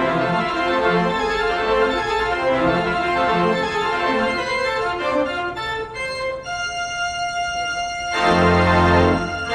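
Organ music: a passage of moving chords, then a long held chord, and a louder, deeper chord near the end.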